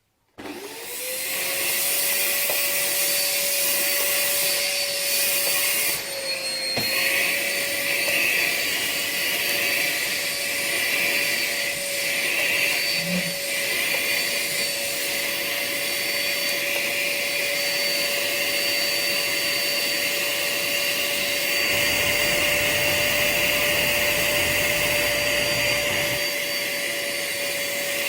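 Dirt Devil vacuum cleaner switched on, its motor whining up to speed within the first second and then running steadily with a loud airflow hiss. The tone wavers briefly about six seconds in, and a lower rumble joins for a few seconds near the end.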